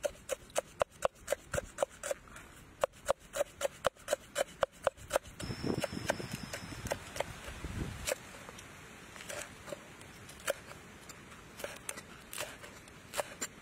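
Cleaver chopping leafy greens and red chillies on a wooden chopping block: quick, sharp chops about four or five a second, then a couple of seconds of softer noise, then slower, lighter chops.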